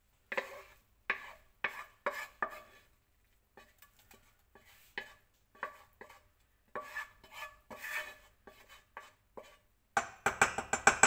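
A kitchen utensil scraping and knocking against a pan and bowl as cooked spinach is added to pancake batter, in short irregular strokes. Near the end, fast, evenly spaced stirring strokes in the bowl take over and are the loudest part.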